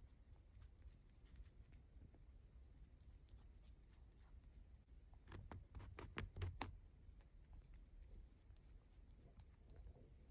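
A pet rabbit's faint chewing and licking: soft scattered clicks, with a short run of louder clicks a little past the middle.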